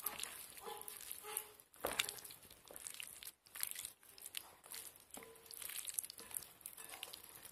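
A hand squeezing and turning raw chicken pieces in a wet spice marinade in a glass bowl: soft squelching with irregular small clicks.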